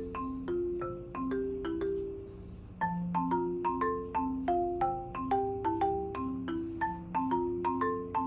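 Background music: a light marimba-style tune of plucked or struck notes over a soft lower accompaniment, at about three to four notes a second.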